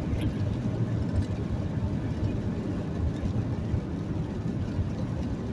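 Steady low rumble of a vehicle's engine and road noise while driving.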